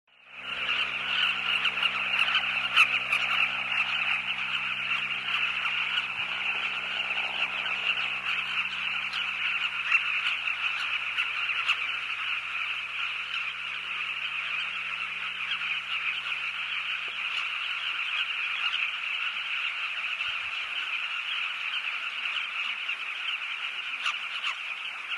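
A large colony of southern carmine bee-eaters calling all together: a dense, continuous chorus of throaty, croaking calls. A faint low steady hum lies underneath and fades out near the end.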